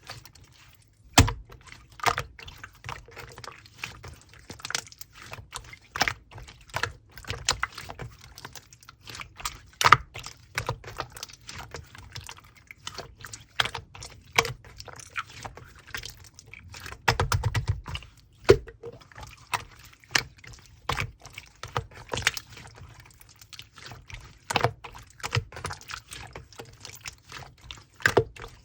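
Hands squeezing, folding and poking slime: an uneven stream of sticky clicks, squelches and small air pops, with a few louder pops.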